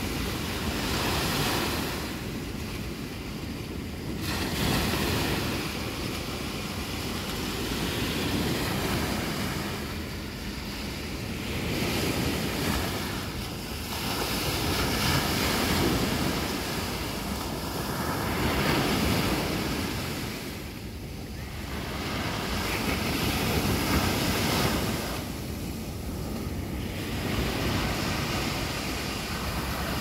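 Small sea waves breaking and washing up a sandy beach, the surf hiss swelling and falling away every few seconds, with a steady low rumble of wind on the microphone.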